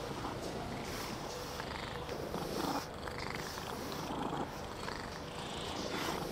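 Long-haired cat purring steadily while its fur is brushed with a slicker brush, with soft swishing strokes of the brush through the fur every second or so.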